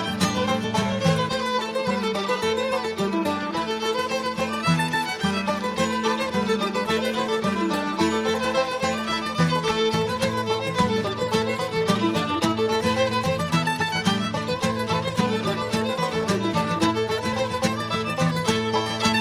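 Live acoustic string-band music: fiddle melody over strummed and picked guitar, banjo and mandolin, in a bluegrass style with a steady beat.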